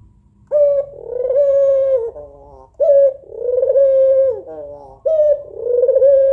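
Female white Barbary dove (puter putih) cooing, three phrases a little over two seconds apart, each a short note, a longer held note and a brief falling tail. It is a female's call to draw a male.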